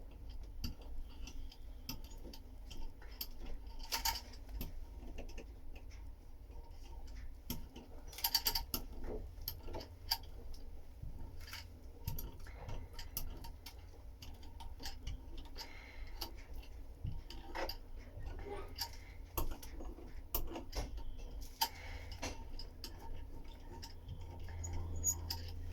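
Irregular light clicks and taps from hand laminating work with resin and glass fibre mat, with a few louder clusters about 4 and 8 seconds in.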